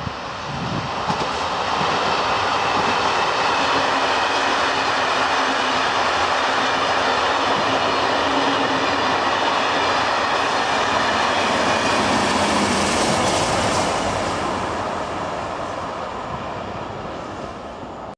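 Belgian locomotive-hauled passenger train running past on the rails: a steady rumble of wheels on track that builds over the first couple of seconds, holds, and fades over the last few seconds as the train moves on.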